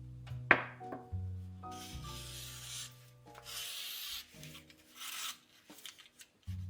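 A few short rubbing noises come and go over soft background music, with a sharp click about half a second in.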